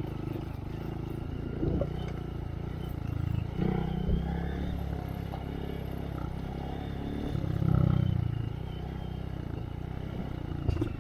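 Honda Monkey's single-cylinder engine through a Yoshimura RS3 exhaust, running steadily at low trail speed, with the throttle opening up twice, about three and a half seconds in and near eight seconds in. Light clatter from the bike over rough ground.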